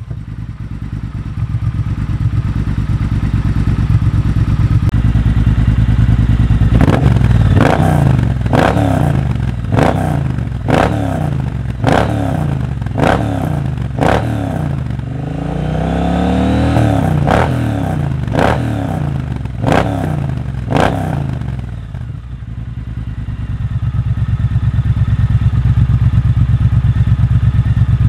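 Triumph Bobber Black's 1200 cc parallel-twin engine breathing through Vance & Hines slip-on mufflers, with a Motone X-pipe in place of the catalyst box. It idles, then is revved in a string of quick throttle blips, each rising and dropping back, with one longer rev in the middle, and then settles back to idle.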